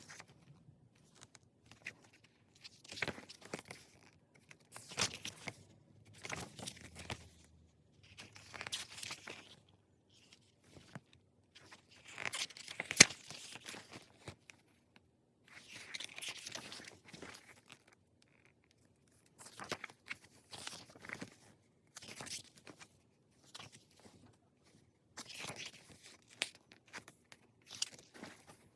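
Pages of an album photo book being turned by hand, a brief papery rustle every second or two, with one sharp tap about halfway through.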